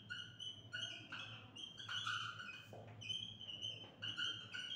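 Dry-erase marker squeaking on a whiteboard while writing: many short high squeaks, a few each second, following the pen strokes.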